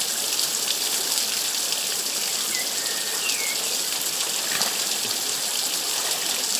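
Water gushing from a pipe spout and splashing down over a person's head onto the rocks below: a steady rushing spatter.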